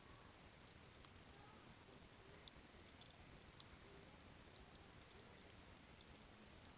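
Faint, irregular crackles and pops from a campfire of softwood (conifer) firewood burning, a dozen or so scattered snaps over a quiet background.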